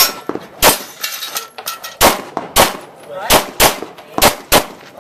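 Pistol shots fired in a practical shooting stage: about seven shots, most of them in quick pairs.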